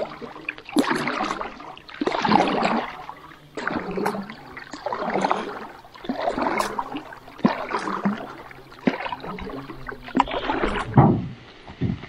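Small boat being paddled with short hand paddles: swishing paddle strokes in the water, about one every second and a half, with small knocks between them.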